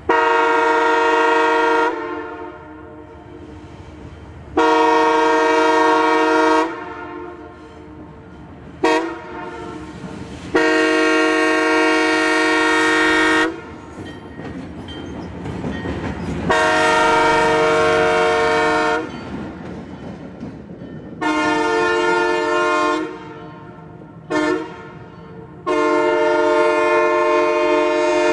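Multi-chime locomotive air horn blowing a steady chord in repeated blasts of about two seconds, with short toots in between. The blasts follow the long, long, short, long grade-crossing signal, played twice.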